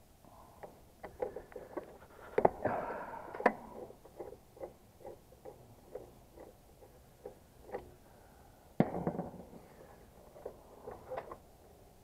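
Screwdriver working the terminal screws of a heat pump's single-pole contactor: a run of small metallic clicks about two or three a second, with a few louder knocks and brief rustles of handling, the loudest about two and a half seconds in and again near nine seconds.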